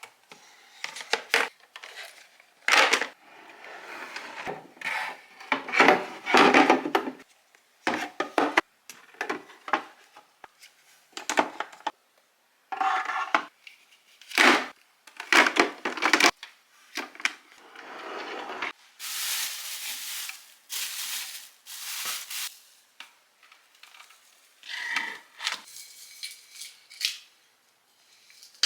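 Household items being handled and set down: a string of short knocks, clatters and rustles, broken off abruptly several times between short clips.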